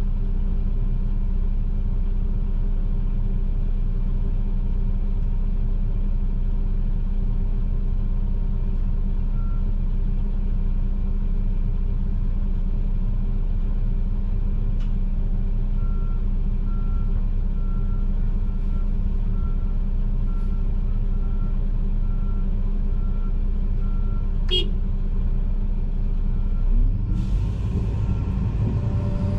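John Deere 245G excavator's diesel engine running steadily, heard from inside the cab. About halfway through, a vehicle's reversing alarm starts beeping at an even pace. Near the end, a louder hiss sets in as the engine comes up.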